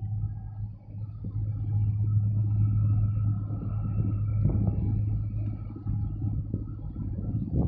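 A steady low engine drone, with a short knock about four and a half seconds in and a louder one near the end.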